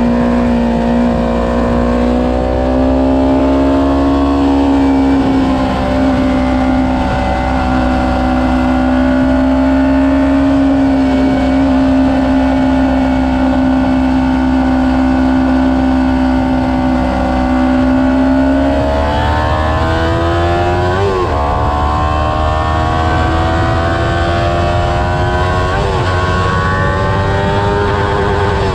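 Sport motorcycle engine running hard on a racetrack, heard from an onboard camera with wind rushing over the microphone. Its note holds nearly steady with a slight rise for most of the stretch, then changes about two-thirds of the way through and climbs steadily as the bike accelerates again.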